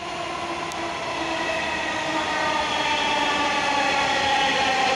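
Dhaka MRT Line-6 electric metro train pulling into the station: a steady whine from its traction motors that slowly falls in pitch as the train slows, growing louder as it approaches.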